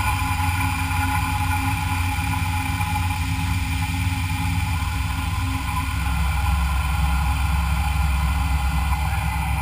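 Machine tool running steadily while machining metal, a continuous low hum with a steady whine above it.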